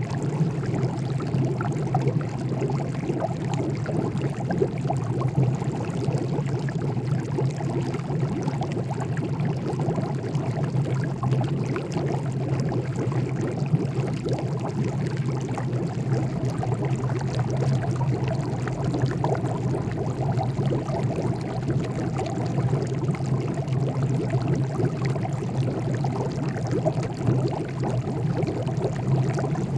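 Water boiling: a steady, dense bubbling that keeps on without a break, over a steady low hum.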